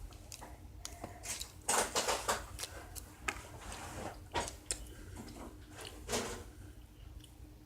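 Someone handling and eating a packaged snack: scattered short rustles, clicks and crunches, busiest about two seconds in, over a steady low room hum.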